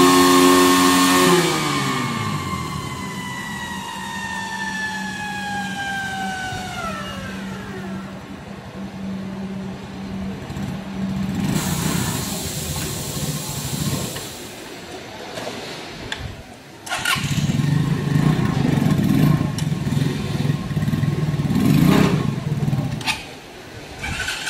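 Motorcycle held flat out on a roller dynamometer at about 105 km/h. About a second in the throttle is shut, and a whine from the spinning rollers and drivetrain falls steadily in pitch over several seconds while the engine drops to idle. In the last several seconds the engine is revved up and down again as the bike pulls off the rollers.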